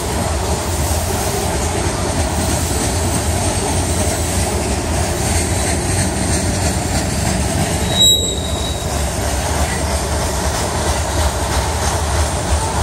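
Freight train covered hopper cars rolling past, a steady rumble and clatter of steel wheels on the rails. A brief high-pitched wheel squeal about eight seconds in.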